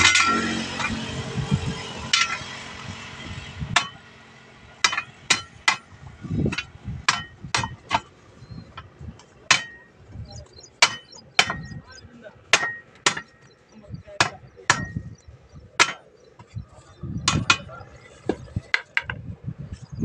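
A hammer striking a steel truck wheel rim again and again, at an uneven pace of up to about two blows a second; each blow is a sharp metallic clank with a short ring, as the rim is driven into a new truck tyre. A rushing noise fills the first few seconds, before the hammering starts.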